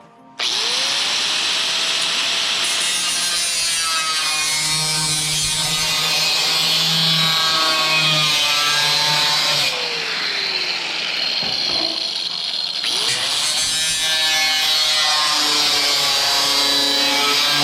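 Angle grinder with a cutoff wheel cutting sheet metal, loud throughout. It spins up about half a second in, winds down around ten seconds in, then spins up again and keeps cutting.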